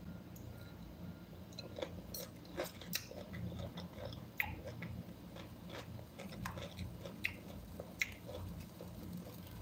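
Close-up eating sounds: a metal fork clicking and scraping against a ceramic bowl in irregular sharp ticks, with chewing and biting of the food, over a faint steady low hum.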